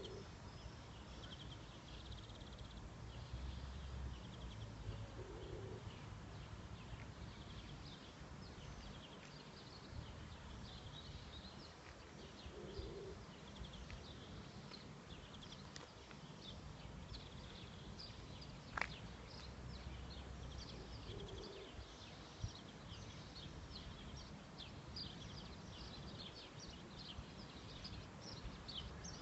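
Small birds chirping and singing on and off in many short, high notes, with a soft lower call coming back every few seconds. A low rumble runs underneath, and there is one sharp click about two-thirds of the way through.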